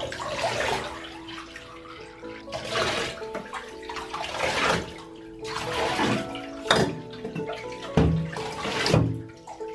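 Bathwater scooped with a plastic cup and poured over a dog's back in a shallow bathtub, with the water splashing back into the tub several times in a row. Background music runs underneath.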